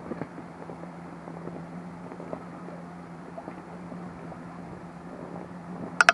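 Small waves slapping and lapping against the side of an inflatable boat on choppy water, over a steady low hum. About six seconds in come two sharp knocks close together, the loudest sounds.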